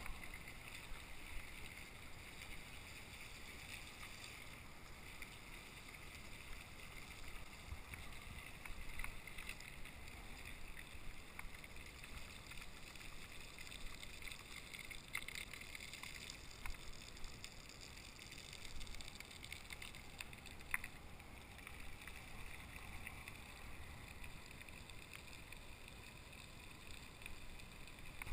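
Faint, steady rolling and wind noise from a bicycle riding over wet pavement, with a few light ticks.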